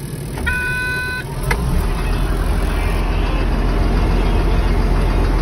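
Caterpillar dozer's diesel engine starting up, with a short steady warning tone about half a second in. The engine then settles into steady running, growing louder over the first two seconds.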